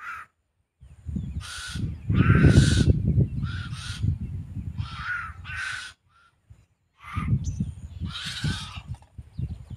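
House crows cawing again and again, about eight caws spread across the stretch with a short pause about six seconds in, over a low rumble.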